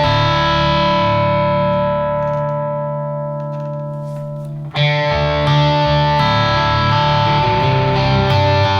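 Electric guitar with single-coil pickups played through stacked overdrive pedals. A distorted chord rings and slowly fades, then a second chord is struck about five seconds in and sustains.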